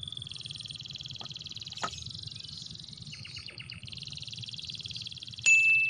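Continuous high-pitched, rapidly pulsing animal trill, with a short burst of chattering pulses about three seconds in. A sudden sharp strike near the end leaves a clear ringing note.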